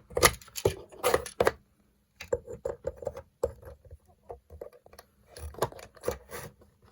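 Small plastic toy figures and skateboards being handled, giving irregular clicks, taps and light clatter against plastic, loudest in the first second and a half.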